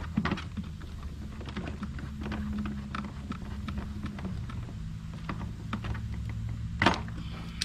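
Light clicks and rattles of plastic housing parts and screws being handled and fitted during assembly of an electric pressure washer, with one sharper click a little before the end. A steady low hum runs underneath.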